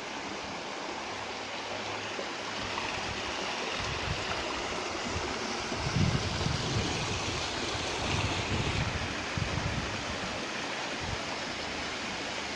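Small shallow stream running over stones: a steady, even rush of water, with a few brief low rumbles around the middle.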